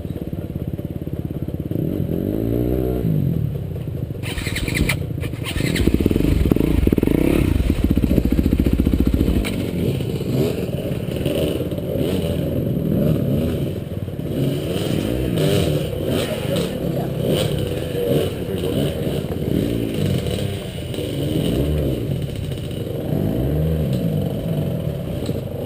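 Off-road motorcycle engine revving up and down in pitch, with its loudest, hardest revving about six to nine seconds in. A couple of sharp clatters come about four to five seconds in.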